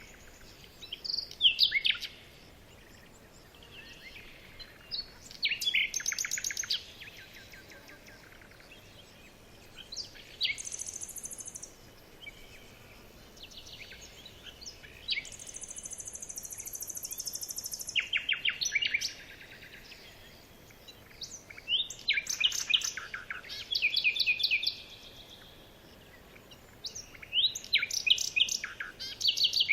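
Small birds chirping in quick, high trills, a burst every few seconds. A very high, even buzz joins in twice, briefly about a third of the way in and for a few seconds just past the middle.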